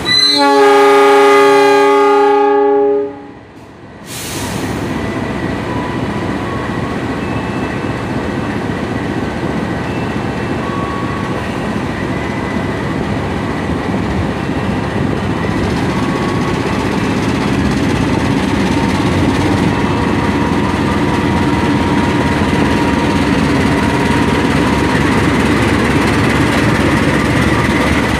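A CC 206 diesel-electric locomotive sounds one horn blast about three seconds long as it departs, then its diesel engine works hard as the train pulls away, the engine and train noise growing gradually louder.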